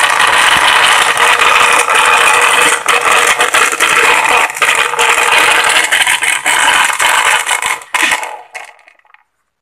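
Panasonic blender running with water in its glass jar: a loud rattling motor-and-blade noise that stops about eight seconds in and dies away. The noise comes from a loose, wobbly bushing in the blade assembly, which the repairer finds on opening it.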